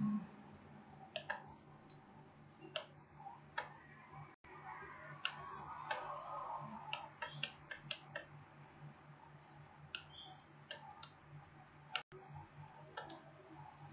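Computer mouse clicking: scattered single clicks, about eighteen in all, with a quick run of them about seven to eight seconds in, over a faint steady low hum.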